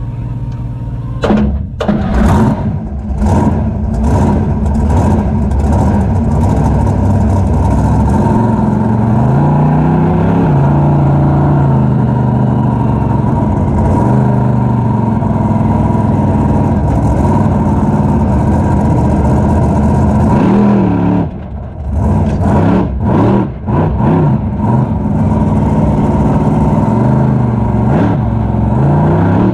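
Raminator monster truck's engine heard from inside the cab, running hard and revving up and down during wheelies. About two-thirds of the way in the throttle drops off briefly a few times before the revving picks up again.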